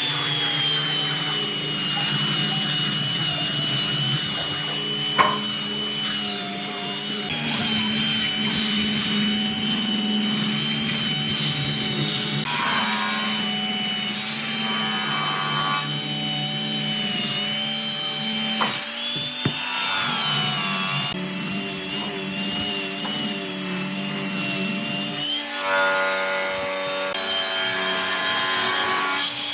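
Electric power tool working wood: a steady motor whine that wavers in pitch as the load changes, with a rubbing, abrasive sound of the cut. One sharp click about five seconds in.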